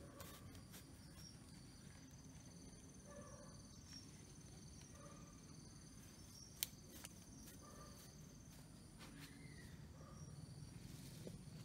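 Faint, steady trilling of night insects such as crickets, over a low background hum, with one sharp click about two-thirds of the way through.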